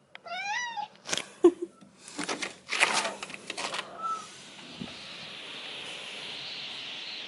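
A cat gives a short wavering meow, then clicks and knocks as a glass door is unlatched and pushed open. Once it is open, a steady outdoor hiss comes in.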